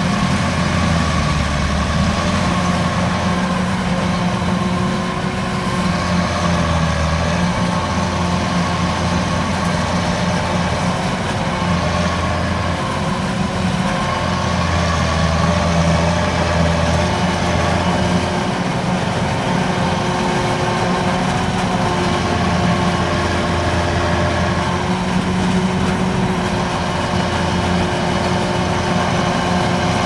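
Kubota DC93 combine harvester at work cutting and threshing rice. Its diesel engine and threshing machinery run steadily under load, the pitch rising and falling slightly.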